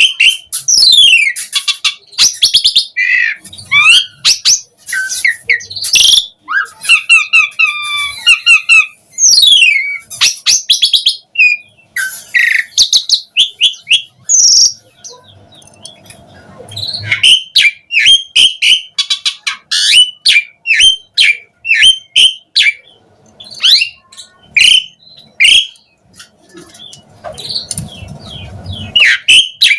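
Javan pied starling (jalak suren) singing continuously in its full varied song: a rapid jumble of loud whistles, chirps, falling glides and dry rattling trills.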